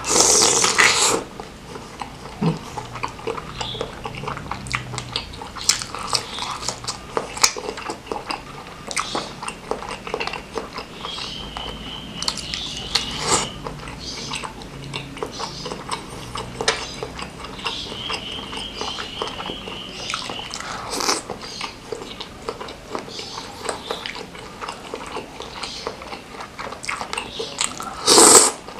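Close-miked eating of spicy seblak with beef-filled meatballs: a loud bite into a meatball at the start, then steady wet chewing with small clicks, and a loud slurp of noodles near the end.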